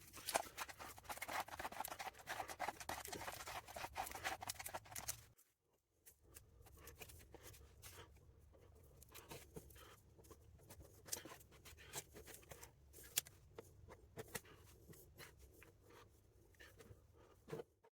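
Dolphin Glaze filler being mixed and worked with a spreader on paper: a scratchy rasping scrape for about five seconds. After a sudden cut, only faint scattered scrapes and clicks.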